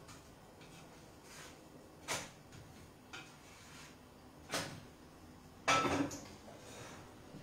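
Kitchenware being handled at the counter by the hob: three separate knocks and clatters, about two, four and a half and six seconds in, the last the loudest with a short ring.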